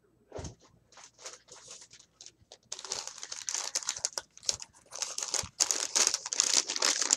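A plastic-wrapped package being handled and opened: scattered rustles at first, then dense, continuous crinkling from about three seconds in.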